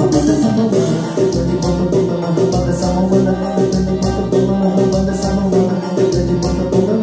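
Korg Pa700 arranger keyboard playing a piseiro groove: a keyboard lead with an organ-like sound over a steady, evenly repeating drum and bass beat.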